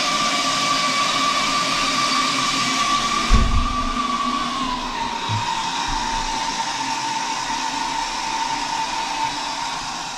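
Water spraying under mains pressure out of the top of a Caroma toilet cistern's ballcock inlet valve that hadn't been screwed on tight enough: a steady loud hiss with a whistling tone that drops slightly in pitch about four and a half seconds in. A low thump about three and a half seconds in, and the sound fades near the end.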